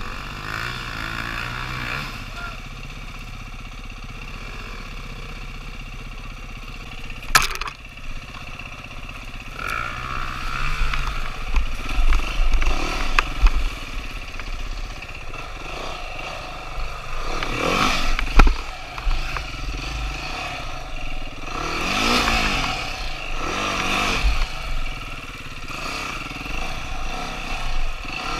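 Dirt bike engine running on the trail, revving up and easing off several times in the second half. There is a sharp knock about seven seconds in.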